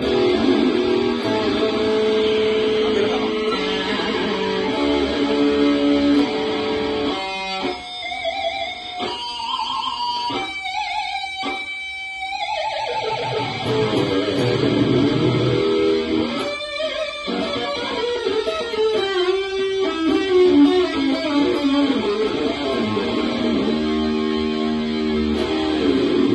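Ibanez RG-series electric guitar with GNB humbucker pickups played through an amplifier: sustained lead notes and runs, with a note bending down in pitch about halfway through.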